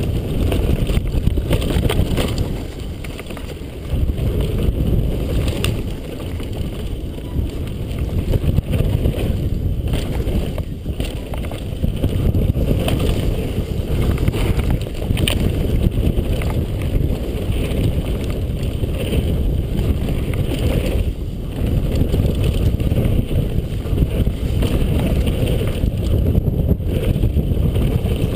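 Wind buffeting the microphone of a helmet camera on a downhill mountain bike at speed. Underneath are the rumble of the tyres on a dry dirt trail and occasional sharp knocks from the bike.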